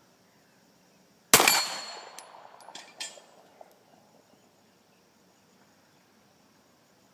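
A single 9mm shot from a Colt Lightweight Commander pistol about a second in, echoing as it dies away, with a thin metallic ring from the steel plate it strikes. A few faint metallic clinks follow, and the next shot begins at the very end.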